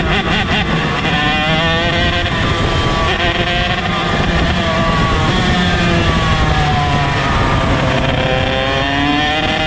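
Onboard sound of a ROK shifter kart's 125cc two-stroke engine running hard. Its pitch climbs and falls several times as the kart accelerates out of the corners and slows for the next.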